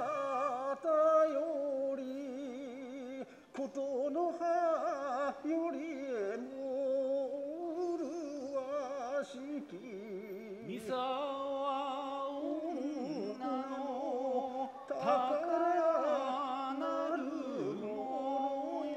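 Kagura music: a voice singing a slow, drawn-out, wavering melody with no drumming, pausing briefly about three seconds in.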